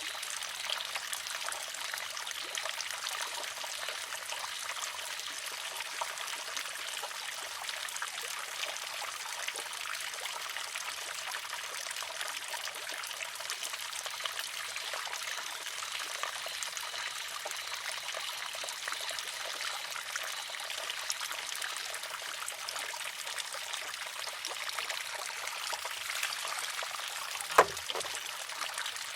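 Water trickling steadily from a spout into a wooden shishi-odoshi. Near the end, the filled arm tips and strikes its rock once with a sharp clack.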